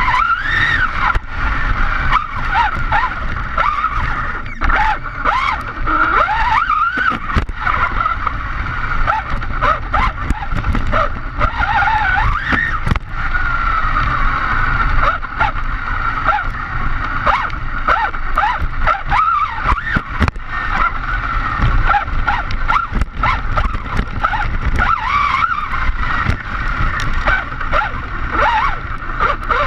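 Arrma Big Rock RC monster truck driving on asphalt, heard from an on-board camera: its 2050kv brushless motor, run on a 6S lipo, whines and rises and falls in pitch with the throttle over a steady rumble of tyres and wind. Short knocks from bumps are scattered throughout.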